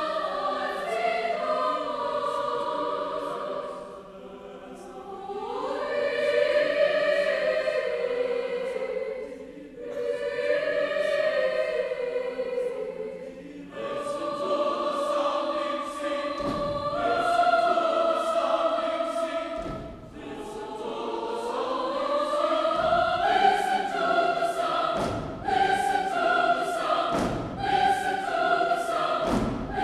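Large mixed choir singing sustained chords in long phrases that swell and fall away, with short breaks between them. A few low piano notes sound under the voices in the second half.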